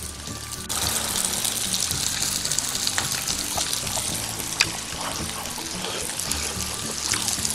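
Pork belly and kimchi sizzling on a hot stone griddle, a steady hiss that steps up a little under a second in, with a few light clicks on top.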